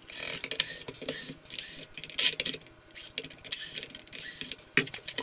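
Cordless drill driver running in short repeated bursts as it backs screws out of the plastic housing of a food dehydrator, with small clicks and rattles between the runs.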